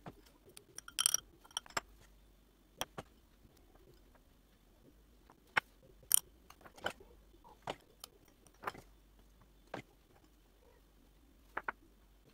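Scattered sharp clicks and knocks of objects being handled and set down, with a brief ringing clink about a second in.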